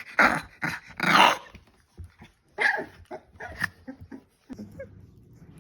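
Staffordshire bull terrier puppies at play, giving a string of short barks and growls, loudest in the first second and a half. After about four and a half seconds only a faint low rumble remains.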